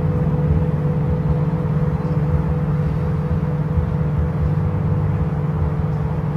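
Several singing bowls ringing together in a steady drone of a few held tones, over an uneven low rumble.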